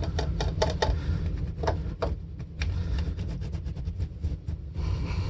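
A polishing cloth rubbing and squeaking on the finish of a hollow-body electric guitar around the F-hole, in a quick, uneven run of short strokes over a steady low rumble.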